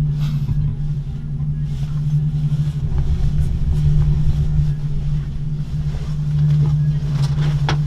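Gondola cabin running along its cable with a steady low hum and rumble. There is a short rattle just after the start as it passes a pylon, and a few sharp clicks near the end.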